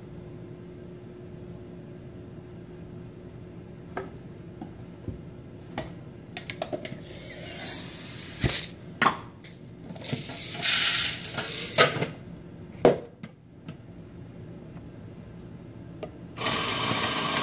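Scattered knocks, clinks and taps of espresso equipment being handled, with a few short, louder clatters in the middle. About a second before the end, the Eureka Atom coffee grinder starts running steadily, purging grounds after a grind-setting change.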